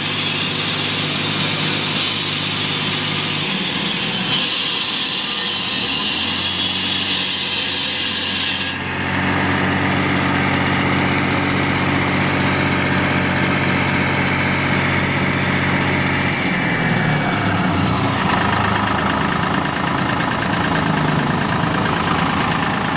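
Diesel engine of a JHD-900 walk-behind concrete saw running steadily. Its sound changes abruptly about nine seconds in, when a high hiss drops out, and shifts in pitch again a little past the middle.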